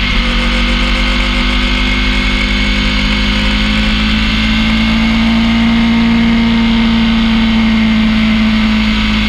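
Ducati V-twin motorcycle engine pulling at steady mid revs with wind rush, its pitch rising slightly partway through. A steady high whine runs through it, which the rider takes for bearing noise during the warm-up lap.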